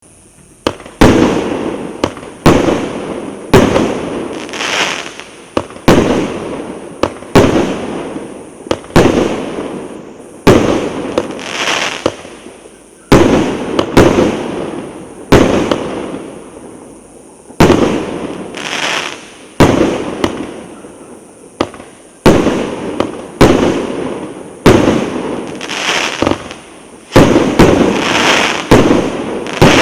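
UralSalyut "Brilliant" consumer fireworks battery (cake) firing its shots one after another, about twenty in all. Each is a sharp bang followed by a fading crackling hiss, coming roughly every one to one and a half seconds.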